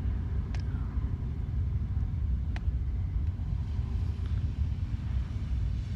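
Steady low background rumble, with two faint sharp clicks.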